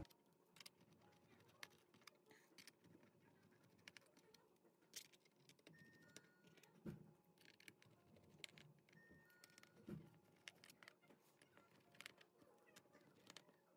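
Near silence, with about a dozen faint, scattered clicks from a small screwdriver and pentalobe screws being worked out of a laptop's aluminium bottom case.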